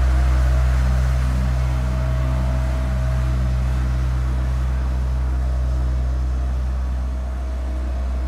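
Cat CB16 tandem-drum asphalt roller running with a steady low engine drone as it travels over fresh asphalt, easing off slightly near the end as it moves away.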